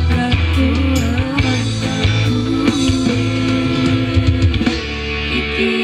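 Music with a strong bass line played loud through a DAT DT1502 portable speaker with twin 15-inch woofers, during a sound check. The bass drops out near the end.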